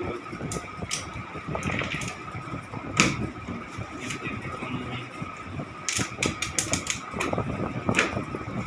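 Printed study booklets and their packaging being handled, with scattered paper rustles and clicks and a quick run of them a little past the middle, over a steady background hum.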